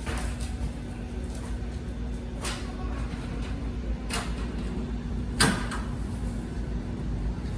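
Four sharp knocks or clicks, spread a second or two apart and the loudest about five and a half seconds in, as glass and fittings are handled, over a steady low hum.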